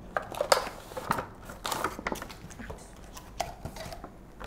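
Cardboard box and clear plastic tray of a webcam's packaging being opened and handled: irregular rustling, crinkling and light clicks, busiest in the first two seconds.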